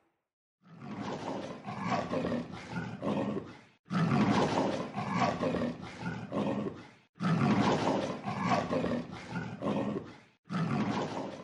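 Lion roaring: four long roars in a row, about three seconds each, with short breaks between them.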